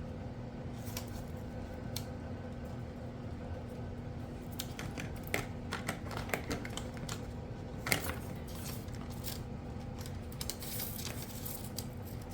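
Small clicks and clatter of Kato Unitrack model track sections being handled and worked into place, scattered through the second half with one louder click about eight seconds in, over a steady low hum.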